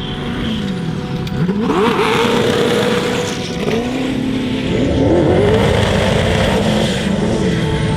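1600 hp sand buggy's engine revving hard. Its pitch falls, climbs sharply and holds high, dips, then climbs again about five seconds in, over a steady rushing noise.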